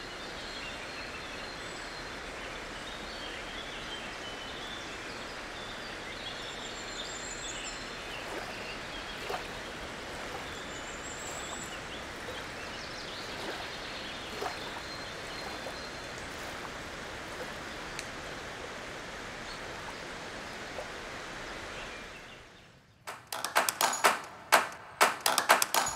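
Steady outdoor ambience, an even hiss with faint bird chirps now and then. It fades out about 22 seconds in, and music with crisp, evenly struck notes begins near the end.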